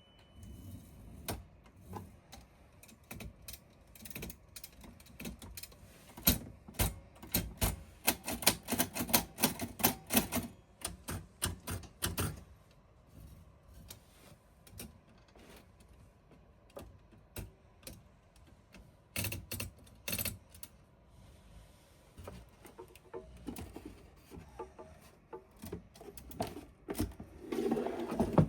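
Keys of a 1937 Royal portable typewriter being struck. About six seconds in there is a quick run of sharp keystrokes lasting several seconds, then a few scattered strikes, with a duller clatter near the end.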